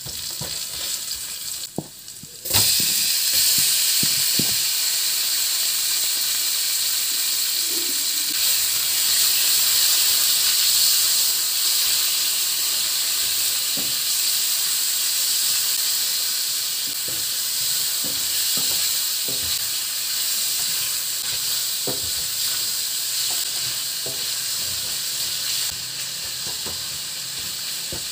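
Raw chicken breast pieces frying in hot oil in a steel wok. The sizzle is fairly quiet over the garlic, onion and ginger at first, turns suddenly much louder about two and a half seconds in as the chicken goes in, then keeps up a steady hiss. A spoon scrapes and taps against the pan as the chicken is stirred.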